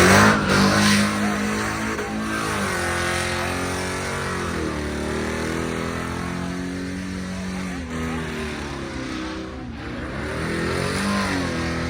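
Car engine revved hard, its pitch climbing steeply right at the start, then held at high revs for several seconds, the pitch dropping and climbing again a few times as at gear changes, as in a drag race pass.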